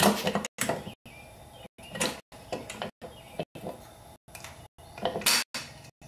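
BMW F800GT clutch cover being worked loose by hand and pulled off the engine case: a series of scrapes and knocks, the loudest near the start and about five seconds in.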